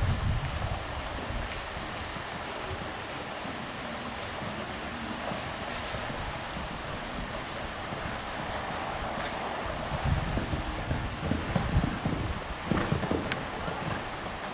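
Steady rain falling, an even hiss with scattered drop ticks. A few low rumbles come through about ten seconds in.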